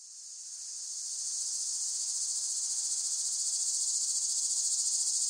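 Insects trilling in a steady, high-pitched chorus with a fast even pulse, fading in over the first second or so and then holding level.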